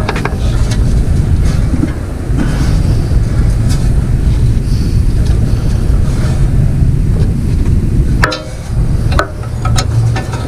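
Wind buffeting the microphone: a loud, uneven low rumble, with a few sharp clicks near the end.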